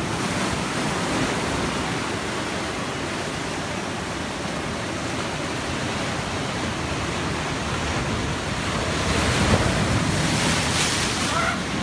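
Ocean waves breaking and washing up the shore, with wind buffeting the phone's microphone. A wave breaks louder about nine seconds in.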